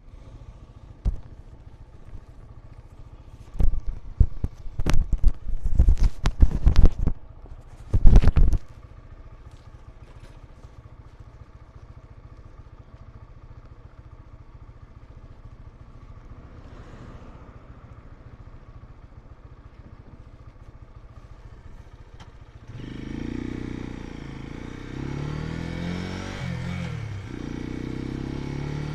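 Dayun Flasher 200 motorcycle engine idling with a faint steady hum, broken in the first several seconds by a run of loud knocks and bumps. About 23 seconds in the engine gets louder and rises in pitch as the bike pulls away and accelerates, with a brief drop near 27 seconds like a gear change before it climbs again.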